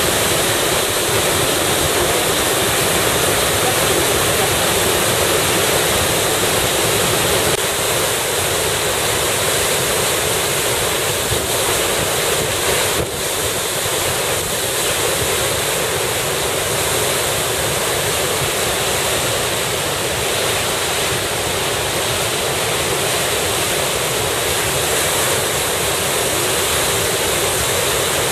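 Waterfall crashing steadily, swollen and running high after heavy rain, with some wind buffeting the microphone.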